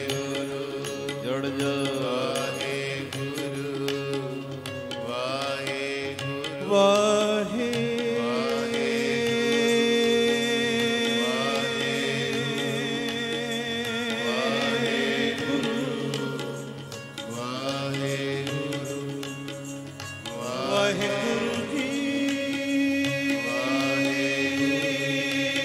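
Sikh devotional simran music: slow, gliding melodic chanting over a steady sustained drone.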